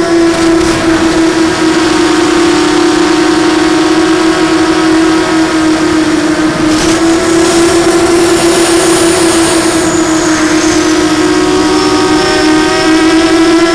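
Blackout Mini H quadcopter's electric motors and propellers running with a steady high whine, recorded from on board, its pitch wavering and rising slightly near the end as the throttle changes.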